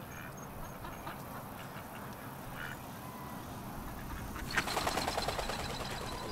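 Two ducks flushing off the grass: a sudden burst of rapid wingbeats and calls starts about four and a half seconds in. Before that there is only faint outdoor background with a soft call or two.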